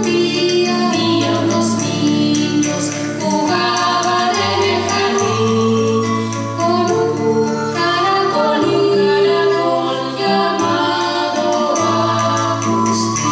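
Music with choral singing: slow, long held notes and chords over a bass line that changes every second or two.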